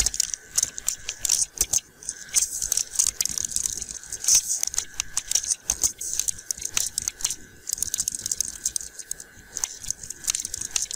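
Computer keyboard being typed on: quick, irregular key clicks in short runs, with a faint steady high whine underneath.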